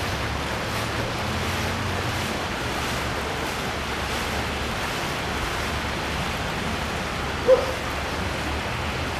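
Steady hiss of heavy rain falling on standing floodwater, with a short voice sound about seven and a half seconds in.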